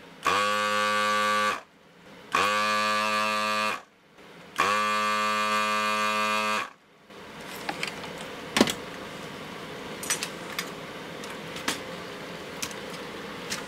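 Electric vacuum desoldering gun's pump buzzing in three bursts of one to two seconds each as it sucks solder from capacitor joints on a circuit board. Afterwards a low steady hum from the bench fume extractor fan, with a few light clicks as the board is handled.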